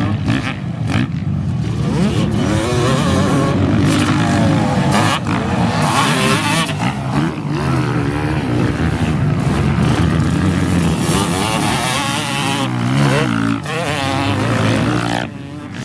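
Motocross dirt bikes racing, their engines revving hard and dropping off again and again as riders accelerate, jump and pass, the pitch repeatedly climbing and falling.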